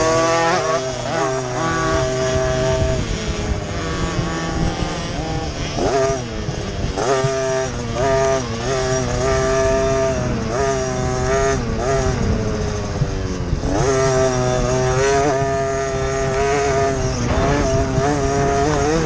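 Motocross bike engine heard from on the bike, revving up through the gears and dropping back over and over as it races across rough dirt, with sharp drops in revs about six and fourteen seconds in.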